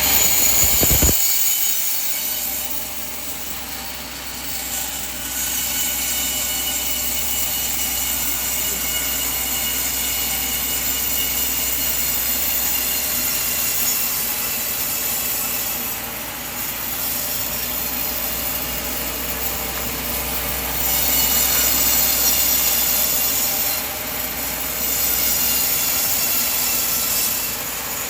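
Band sawmill sawing through a coconut log: a steady, high-pitched hissing whine that grows louder for stretches about two-thirds of the way in and again near the end.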